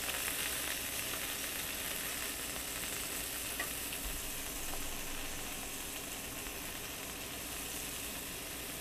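Flounder fillets frying in a stainless steel skillet: a steady sizzle.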